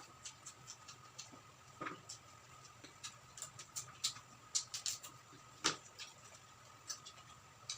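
Close chewing and crunching of crispy deep-fried quail: irregular small crackles and clicks, with a louder crunch about two thirds of the way through.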